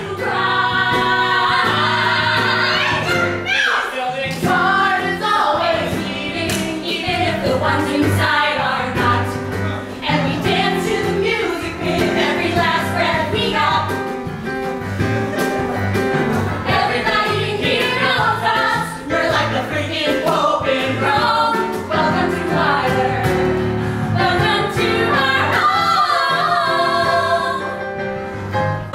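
Voices of a stage cast singing a musical-theatre number over live keyboard accompaniment.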